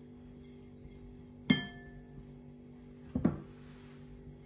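Kitchenware clinking: a ceramic plate knocks once against a glass mixing bowl with a short ringing clink, then two duller knocks follow about a second and a half later, over a faint steady hum.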